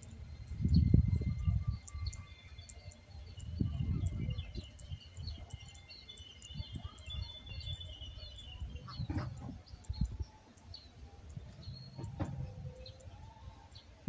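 Small birds chirping and twittering outdoors, with a low rumble swelling about a second in and again around four seconds.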